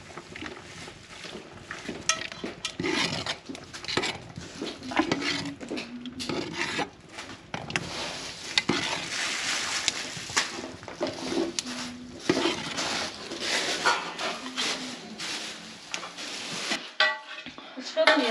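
Metal ladle stirring and scraping inside an aluminium pot of thick āsh soup, with repeated clinks against the pot's sides.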